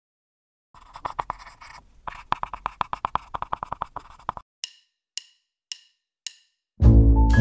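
Typing sound effect, a fast run of keystroke clicks as the title text appears, followed by five sharp ticks about half a second apart; music with a beat starts near the end.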